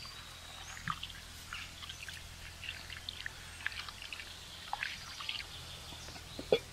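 Water sloshing and trickling in short, irregular splashes as lentils (dal) are rinsed by hand in a vessel, with a sharper knock near the end.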